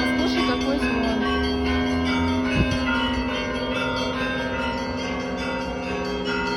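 Russian Orthodox church bells ringing: a peal of several bells struck over and over, their tones ringing on into each other. A brief thump about two and a half seconds in.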